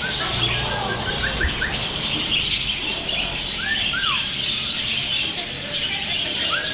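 A flock of budgerigars chattering and chirping together in a steady, dense high twitter. A few clearer short chirps stand out near the start, in the middle and near the end.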